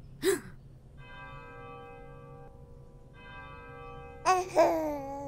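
A brief vocal sound at the start, then two long, steady bell-like chime tones, one after the other. About four seconds in, a baby babbles with rising and falling pitch over the second tone.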